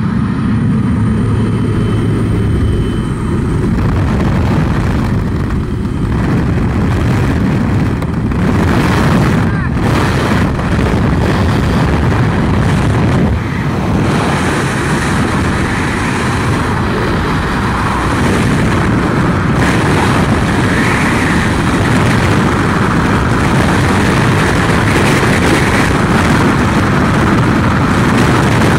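Loud wind noise on a helmet camera's microphone during a skydive. It begins as the jump plane's engine hum mixed with wind at the open door. After the exit it becomes a steady freefall wind rush.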